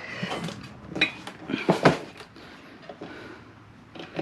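Steel tire levers clanking and scraping against a motorcycle wheel rim as the tire bead is levered on: a few sharp metallic knocks in the first two seconds, the loudest just before the two-second mark, then quieter handling.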